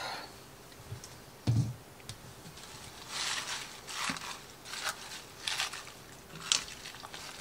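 A soft low thump about a second and a half in, then a spoon stirring raw baby spinach into a pot of hot cream sauce: five or so soft swishing strokes, a little over one a second.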